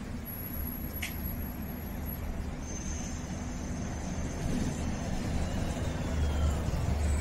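Street traffic ambience: road vehicles passing, heard as a steady low rumble.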